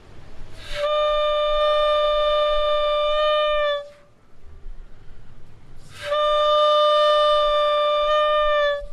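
Homemade balloon bugle, a balloon membrane stretched over a cut plastic bottle and blown through a card-reel mouthpiece, sounding two long, steady trumpet-like blasts of about three seconds each. The pitch dips slightly as each blast ends.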